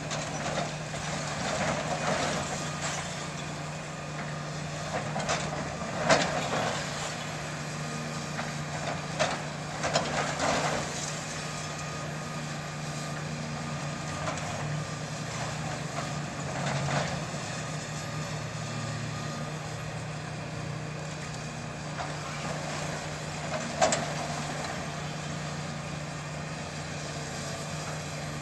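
Hydraulic excavator's diesel engine running steadily while it demolishes a brick building, with intermittent crashes and clatter of falling brick and debris. The loudest crashes come about six, ten and twenty-four seconds in.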